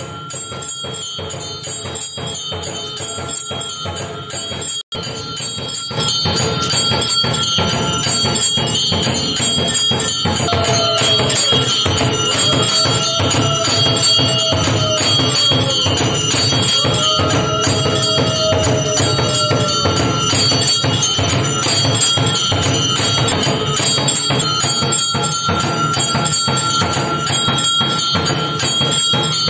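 Temple bells rung rapidly and continuously for an evening aarti, with a steady ringing tone over the clatter. The sound drops out for a moment about five seconds in and comes back louder. Around the middle, a tone swells and falls several times over the ringing.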